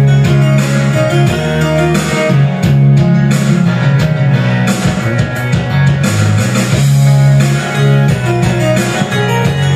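Karaoke backing track playing an instrumental passage with no vocals: rock-style music with guitar, a bass line and drums.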